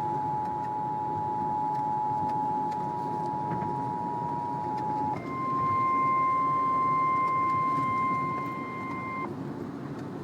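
Weather radio alert tones over a steady background rumble: the Emergency Alert System two-tone attention signal sounds until about halfway. It then switches to the single higher NOAA Weather Radio warning alarm tone, which cuts off about a second before the end, announcing a National Weather Service warning.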